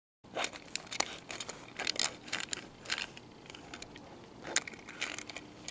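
Handling noise from a die-cast toy car held in the fingers: irregular sharp clicks and crackles as nails and fingers knock and rub against it.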